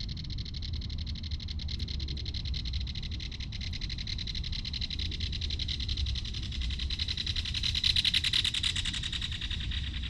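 Belted kingfisher giving its rapid rattle call, going on without a break and growing loudest about eight seconds in.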